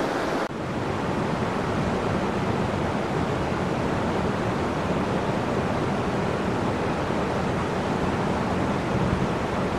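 A mountain river rushing steadily: an even wash of whitewater noise with no breaks, setting in after an abrupt change about half a second in.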